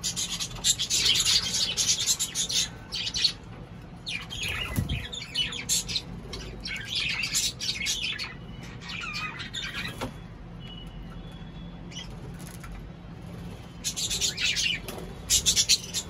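Cockatiels chirping and calling in several busy bursts, with a quieter stretch in the latter half.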